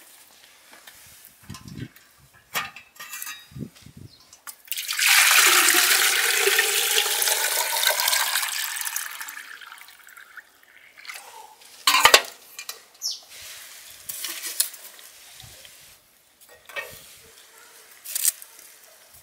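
Water poured from a plastic jug into the metal body of a charcoal samovar, a loud rush that rises in pitch as the samovar fills and then trails off. A few sharp knocks and clicks come before and after it.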